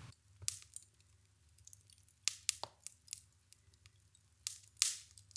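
Glowing wood-fire embers crackling, with irregular sharp pops and ticks and a few louder cracks.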